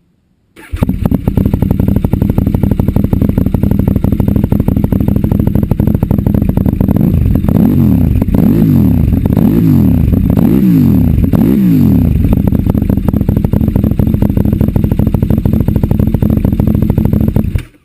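KTM RC8R V-twin engine running through a full Akrapovic exhaust with carbon cans and titanium pipes. It idles, then is blipped about five times in quick succession midway, settles back to idle, and cuts off just before the end.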